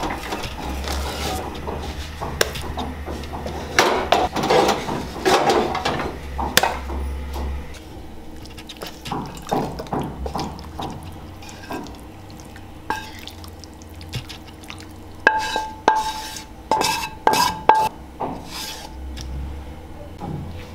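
Metal plates and dishes clinking and clattering as food is handled and served, a run of sharp knocks with a cluster of ringing clinks about two-thirds of the way through.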